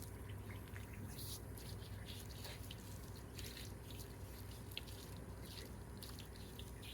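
Faint water from a hose-fed shower-head nozzle trickling and dripping through a wet dog's fur, with scattered small drips and splashes over a steady low hum.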